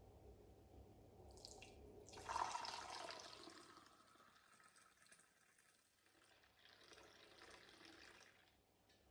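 Faint running water, like a tap turned on, in two short spells, the first starting about two seconds in and the second near the end.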